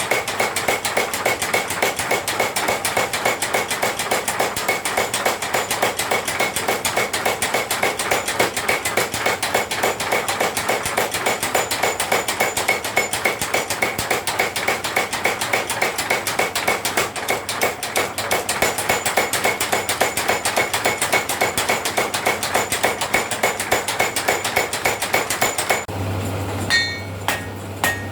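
Steel being forged with fast, even hammer blows, about five a second, ringing metallically, which stop about 26 seconds in. After that a low steady hum and a few lighter metal clinks.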